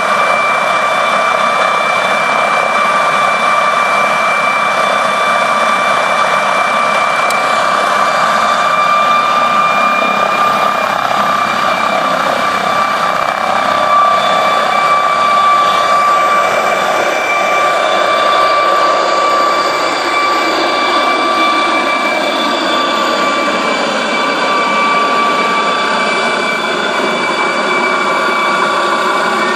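MD 902 Explorer twin-turbine NOTAR helicopter at take-off power lifting off and climbing away: a steady high turbine whine over loud rotor noise. It is loudest about halfway through as it leaves the ground, and the tones waver in pitch near the end as it climbs overhead.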